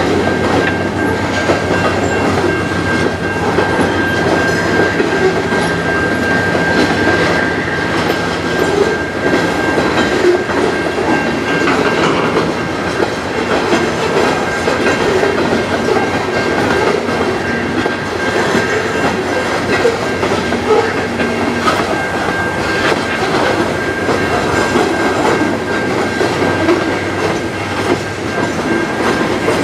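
Freight train of covered hopper cars rolling steadily past, steel wheels clacking over the rail joints, with a steady high-pitched tone above the rumble.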